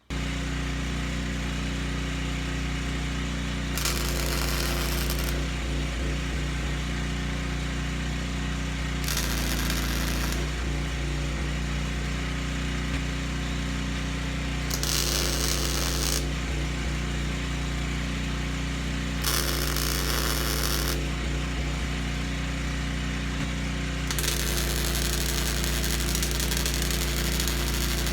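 Electric arc welding: the arc crackles in five short runs while the pieces are tacked and welded, the last run the longest, over a steady machine hum.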